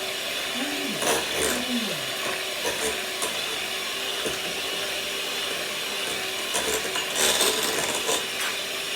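Electric mixer running steadily at medium speed, beating cake batter in a bowl, its motor giving an even hum over a whirring noise.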